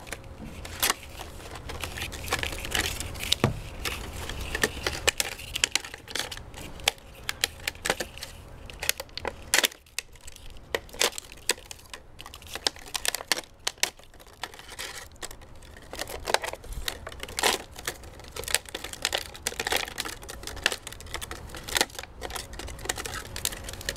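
Thin clear plastic of a cut-up gallon water jug crinkling and clicking as it is flexed and handled, in many irregular sharp clicks.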